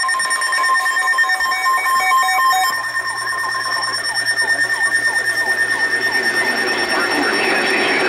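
Sangean weather radio sounding its electronic alert alarm for a received Severe Thunderstorm Warning: short repeated beeps, then a fast run of falling chirps pulsing about four times a second.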